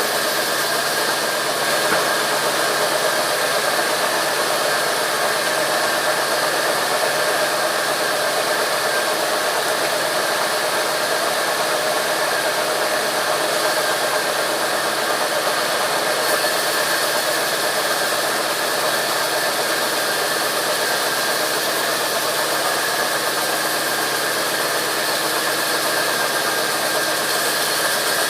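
Sawmill machinery running steadily: continuous engine and saw noise with a constant whine, unchanging throughout.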